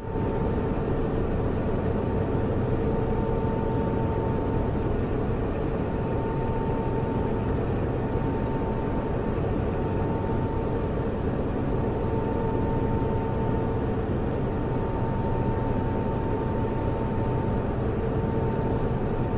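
Computer servers running: a steady, unchanging rush of cooling fans with a low hum and a constant mid-pitched tone over it.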